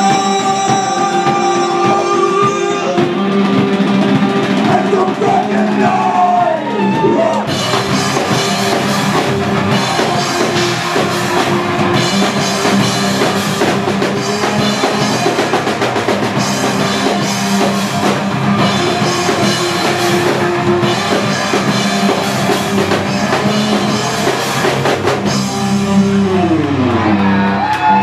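Rock band playing live: electric guitars, bass and drum kit with vocals. The full drum beat comes in about seven seconds in, and a guitar slides down in pitch just before it and again near the end.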